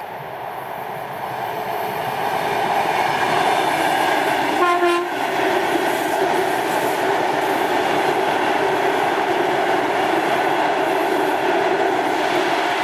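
Train passing close by, its running noise growing louder over the first few seconds and then holding steady. About five seconds in the train gives one short horn blast.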